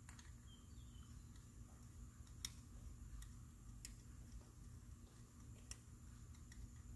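Near silence: faint room tone with a few light, irregular ticks.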